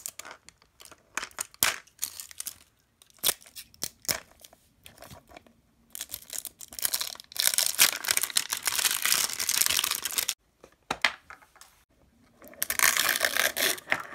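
Thin clear plastic wrap being peeled and torn off a plastic Mini Brands capsule ball, crinkling. Scattered sharp crackles at first, then long spells of dense crinkling from about six seconds in and again near the end.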